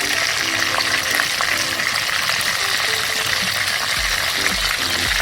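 Chicken pieces pan-frying in oil, a steady sizzle, as they fry to golden brown.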